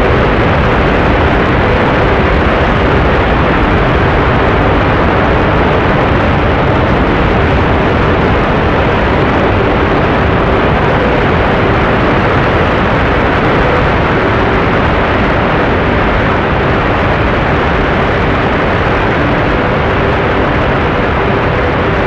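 Whitewater river rapids rushing: a loud, steady wash of water noise.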